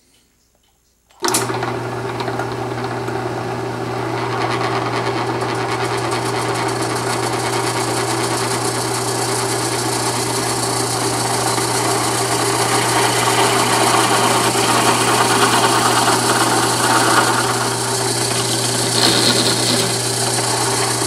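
Drill press starting up about a second in and running steadily with a constant motor hum, while a twist drill bit bores into the end grain of a wooden block, with rough cutting noise over the hum.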